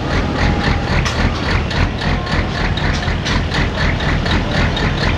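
Pro stock pulling semi's big diesel engine idling with a steady low drone, overlaid by an even mechanical clatter of about four to five beats a second.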